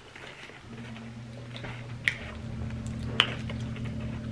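Eating sounds: sharp mouth clicks and smacks from people chewing fries and chicken, the two loudest about two and three seconds in. Under them runs a steady low hum that starts within the first second.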